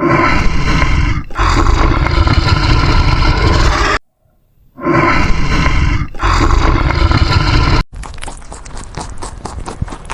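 A loud animal roar, heard twice in a row with a short gap between, each lasting about three seconds and faltering briefly after the first second. Near the end it cuts off suddenly and gives way to a quieter run of rapid clicking steps.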